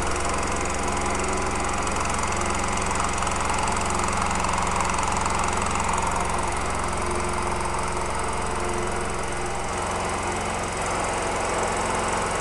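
Rix SA6 three-stage, oil-free scuba compressor, driven by a 5 HP single-phase electric motor, running steadily as it pumps high-pressure breathing air. It gives a constant low hum under an even mechanical noise.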